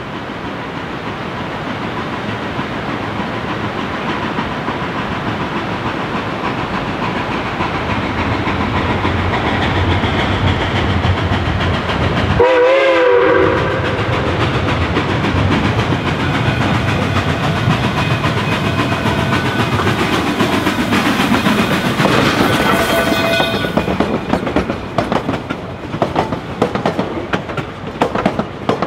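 Durango & Silverton narrow-gauge steam train passing close by: its running noise builds steadily, a short wavering whistle-like blast comes about halfway, then several steady high tones sound together for some seconds. Near the end the rapid clickety-clack of the wheels over the rail joints takes over.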